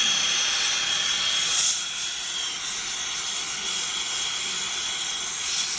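Brazing torch flame hissing steadily as it heats a copper line-set joint, with a thin steady whistle over it; the flame noise eases slightly about two seconds in.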